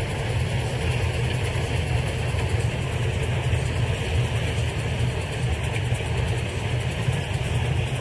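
Farm machinery engine running steadily, a low drone under a constant hiss.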